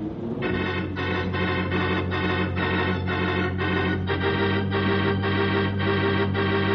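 Organ music bridge between scenes of a radio drama: held organ chords that swell in at the start and pulse about three times a second, moving to a new chord about four seconds in.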